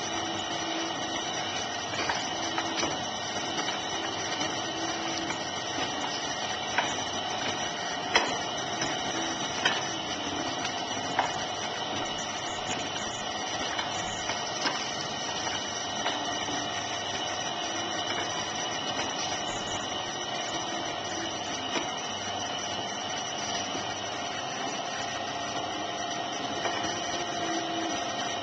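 Electric potter's wheel running with a steady hum made of several fixed tones, and occasional sharp clicks.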